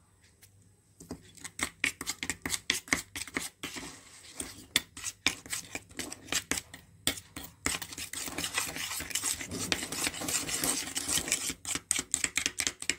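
A spoon stirring a thick paste of powder, glue and water in a steel bowl. It makes quick clicks and scrapes against the bowl, starting about a second in and coming thicker and faster in the second half.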